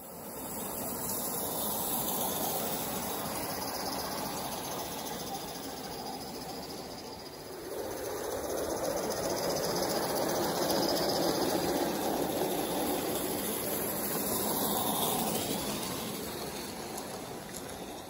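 Small-scale live steam model locomotive and its train running past on outdoor track: a steady hiss of steam and running gear that swells for several seconds in the middle as the train comes close, then eases off.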